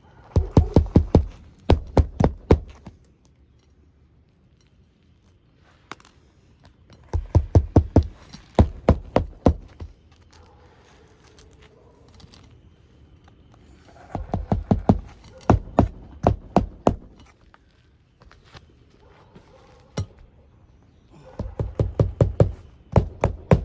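Hammer driving roofing nails through a new asphalt shingle: four runs of quick, sharp blows, each a couple of seconds long, with pauses in between.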